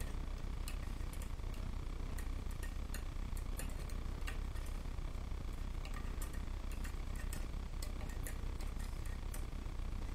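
Scattered light clicks and taps as a thin pick lifts yarn loops off the pegs of a wooden nail loom, over a steady low hum.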